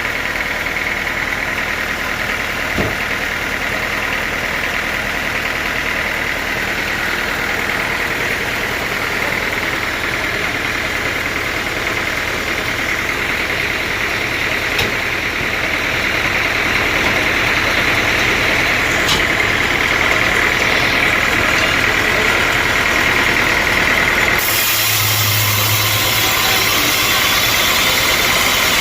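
Sawmill machinery running steadily with a constant high whine, and a few light clicks. Near the end the sound changes suddenly and turns hissier.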